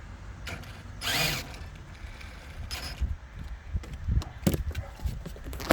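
Electric motor of a radio-controlled car whining in short bursts as it is driven, with several sharp clicks and knocks in between.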